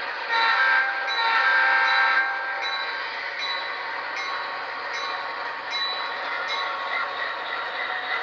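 Diesel locomotive horn from the sound decoder of a model Santa Fe C44-9W (Dash 9), played through a small speaker: a short blast, then a longer one. The decoder's diesel engine sound runs on underneath, with faint regular clicks about every 0.7 s.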